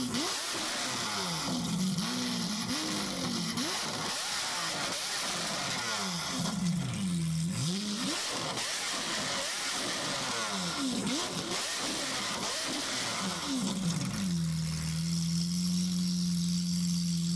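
Lamborghini Aventador S's naturally aspirated V12, breathing through a freshly installed full RYFT exhaust, blipped up and back down again and again. About fourteen seconds in it drops to a steady idle.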